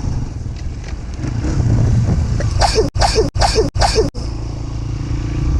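Honda CRF150F single-cylinder four-stroke dirt bike engine running under way, revving up in four quick rising bursts around the middle, with the sound cutting out sharply between them, then settling to a steady note near the end.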